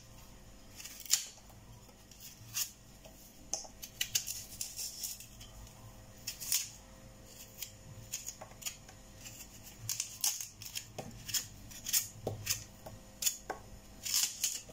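Kitchen knife paring the skin off a raw taro corm: a string of short, irregular scraping cuts, one to three a second.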